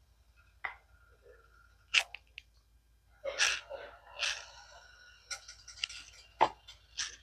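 Kitchen handling sounds: scattered clicks and knocks with a few short hissy stretches as cooking oil is added to a heating pan.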